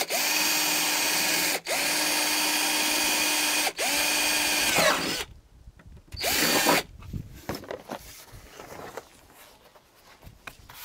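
Cordless drill drilling holes through a fibreglass front spoiler lip: three runs of a steady motor whine with brief pauses between them, the last winding down in pitch, then one short burst about six seconds in. Quieter handling noises follow.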